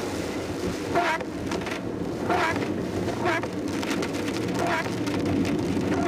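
Inside a car driving in heavy rain: a steady rumble of engine, tyres on the wet road and rain on the body. Over it the windscreen wipers sweep with a short swish about once every second or so.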